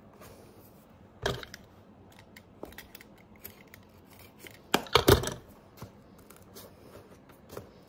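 Hand pliers gripping and snipping at the welt stitching of an old leather boot: scattered small clicks, a sharp snap about a second in, and a louder quick cluster of snips about five seconds in.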